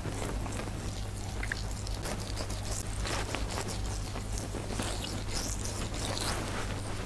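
Fingertips massaging a granular facial scrub over facial skin, giving faint, irregular scraping and rustling. A steady low electrical hum runs underneath.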